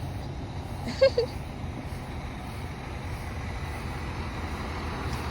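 Truck engine running steadily with a low rumble. About a second in there is a brief, loud, sharp sound with a pitch to it.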